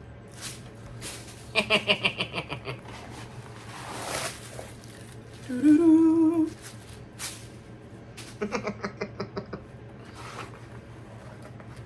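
A person hums a short note about halfway through. Before and after it come two runs of fast clicks, roughly ten a second, and there is a brief rustle in between.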